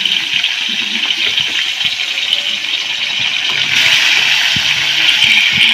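Turmeric-coated tilapia frying in hot oil in a steel wok: a steady sizzle that grows louder about four seconds in.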